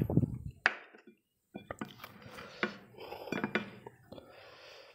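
A steel spoon and bowls clinking in a run of sharp clicks and taps as food is served, after a dull thump at the very start.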